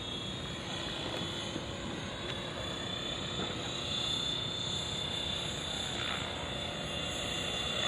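Radio-controlled MD500 scale model helicopter in flight: a steady engine and rotor hum with a thin high whine, growing slightly louder near the end.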